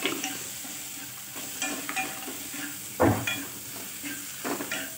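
Metal spatula stirring and scraping an onion-tomato masala around a stainless steel kadhai, a series of uneven scrapes with the loudest about three seconds in, over a steady sizzle of the masala frying in oil.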